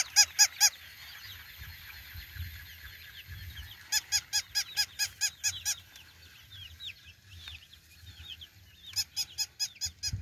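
Battery-operated plush toy dog giving out runs of rapid, identical electronic barks, about six a second: a short run at the start, then about ten barks around four seconds in and again near the end. Chicks peep softly all through.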